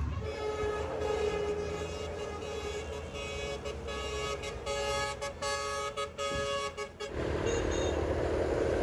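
A vehicle horn held in one long, steady blare for about seven seconds, then it stops and a steady rushing noise takes over.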